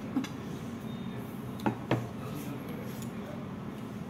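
Three sharp clinks of tableware (cutlery and glasses against plates and bowls), one near the start and two close together near the middle, over a steady low background noise.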